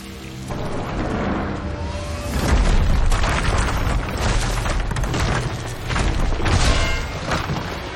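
Film sound effects of a superheated asphalt street cracking and bursting open. A deep rumble builds up, then a run of sharp cracks and booms follows from about two and a half seconds in, as the road erupts.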